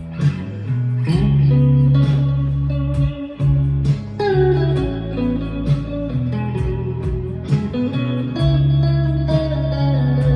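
Ibanez AZES electric guitar played clean through a Boss Katana 50 amp's clean channel, pickup selector in position 4: picked notes and chord tones ringing over sustained low notes, a bright, plinky Strat-like tone.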